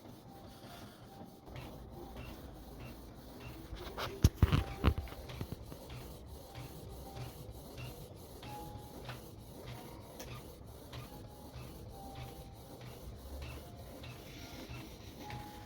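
Canon TR8520 inkjet printer running a print job: a steady motor hum with a repeating mechanical rhythm of two to three beats a second, and a cluster of loud clacks about four to five seconds in as the mechanism moves. The page comes out blank because the ink has dried and clogged the print-head nozzles.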